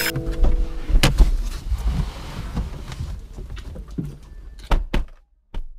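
Irregular knocks and thuds around a parked car with its doors open, over a low rumble of movement, with two louder thuds near the end and one last short knock.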